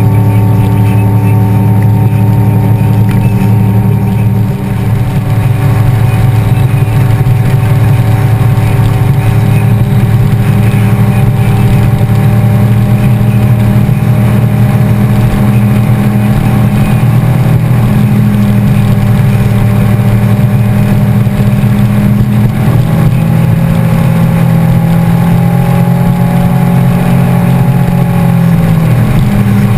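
B&H WaterRod performance boat's engine running at speed, a loud steady drone whose pitch shifts slightly a few times and dips near the end.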